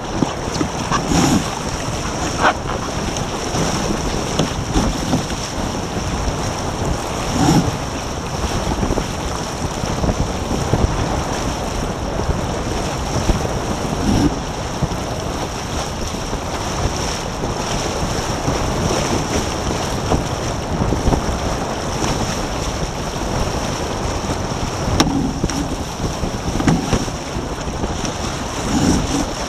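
Wind buffeting the microphone of a camera mounted on a Taipan sailing catamaran under way, over a steady rush of water along the hulls. Short low thumps come every few seconds, with a few sharp clicks.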